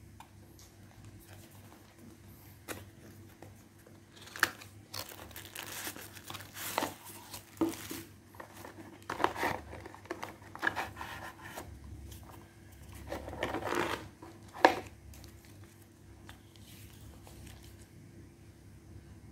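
Small cardboard product box being handled and opened: rustling and crinkling of card and paper, with sharp clicks and snaps from the box flaps, the loudest snap a little past the middle. The last few seconds hold only quiet paper handling as the folded manual is taken out.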